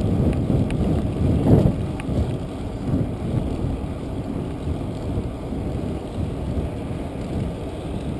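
Wind rushing over the microphone of a camera on a moving bicycle's handlebars, a steady low rumble that swells briefly about a second and a half in.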